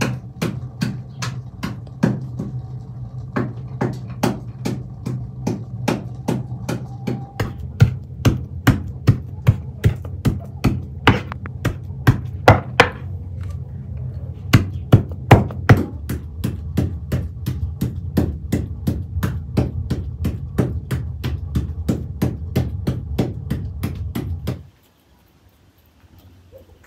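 Steady chopping with a knife or cleaver on a wooden board, about two to three strokes a second, over a low steady hum. The chopping stops abruptly near the end.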